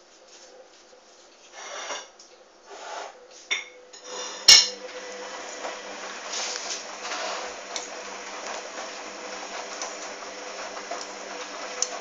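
Hoover washing machine during its final rinse: a few swishing, clattering sounds from the drum, then a sharp click about four and a half seconds in, after which the machine settles into a steady running noise with a faint hum.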